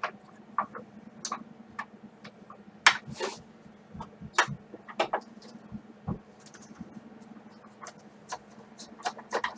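Irregular clicks and taps of a screwdriver working the screws out of the plastic base plate of an upturned upright vacuum cleaner.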